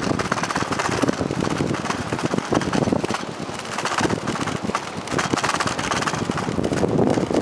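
Bicycle rolling fast over wooden boardwalk planks: a dense, irregular rattle of clicks from the tyres crossing the board joints, with wind buffeting the microphone.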